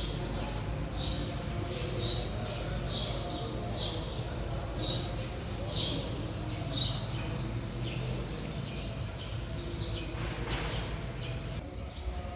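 Birds singing: short, falling chirps repeated about once a second, fewer in the last few seconds, over a steady low background rumble.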